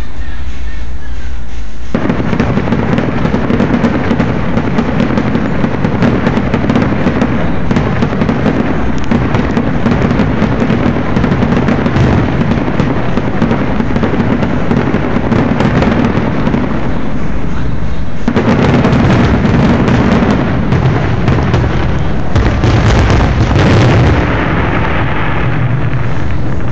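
Fireworks display going off in a dense, rapid barrage of bangs and crackles. It starts about two seconds in, has a short lull about two-thirds of the way through, then builds again before the loudest stretch stops abruptly near the end.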